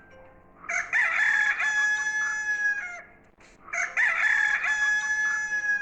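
Rooster crowing twice in a row, each crow a long call lasting about two seconds, from a recording of animal sounds.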